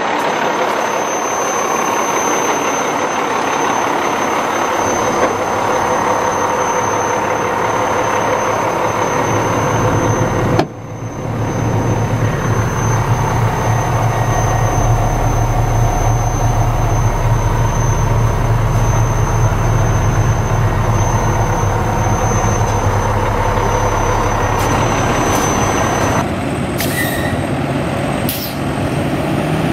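Cummins ISM diesel engine of an International 8600 water truck running steadily. From about 11 s it becomes a deep, steady hum, heard from inside the cab. Two short sharp sounds come near the end.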